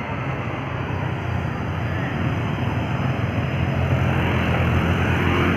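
Heavy truck's engine running as it comes up the hill, a steady low drone with road noise that grows louder as it approaches.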